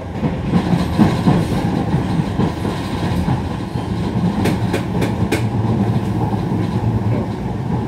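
Docklands Light Railway train running at speed, heard from inside the car: a steady rumble of wheels on rail with clickety-clack over the rail joints. A few sharp clicks come about halfway through.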